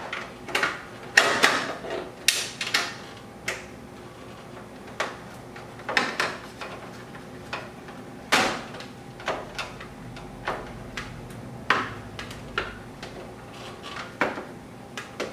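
Hand ratchet wrench clicking in short, irregular strokes as it tightens the bolts holding a diffuser fin, with the bolts close to fully tight.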